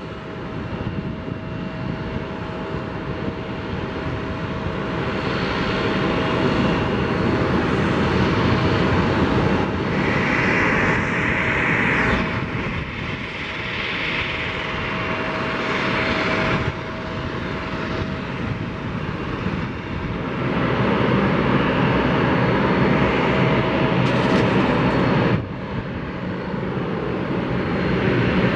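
Aircraft engines running across an airport apron: continuous engine noise with a steady whine, swelling and easing as aircraft move, and dropping suddenly about 25 seconds in.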